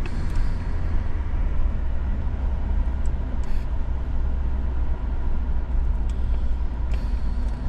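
Steady low rumble of a car's engine and tyres heard from inside the moving vehicle, with a few faint ticks and rattles.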